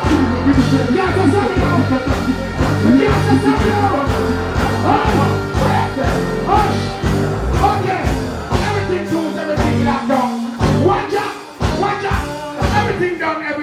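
Loud dancehall music over a stage sound system: a steady bass-heavy beat with a voice singing over it, the bass dropping out briefly about two-thirds of the way through.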